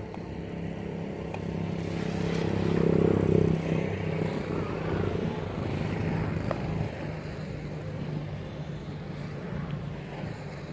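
A small engine running steadily. It grows louder to a peak about three seconds in, then eases back to a steady hum.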